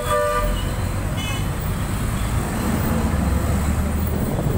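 Bus engine running low while the bus moves through city traffic, heard from inside. A vehicle horn already sounding stops about half a second in, and a short, higher-pitched horn beep follows about a second in.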